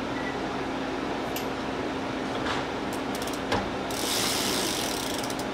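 Mechanical clicking from hands-on work on a folding fat-tire electric bike: scattered clicks, a run of rapid ratcheting clicks about three seconds in, a single thump, then a second or so of fast, hissy ticking, over a steady background hum.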